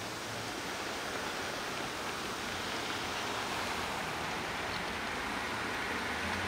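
Steady, even hiss of outdoor background noise with a faint low hum underneath.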